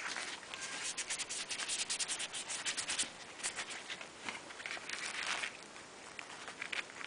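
Handling noise from an ignition coil being moved about by hand. It makes rubbing and scraping sounds with quick clicking clatters, busiest in the first three seconds and again about five seconds in.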